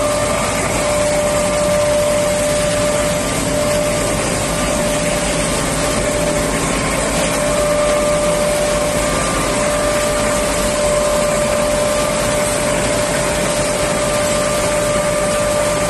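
Combined rice mill machinery running: a steady whir of electric motors, fans and belt-driven elevators with a constant high hum tone over it.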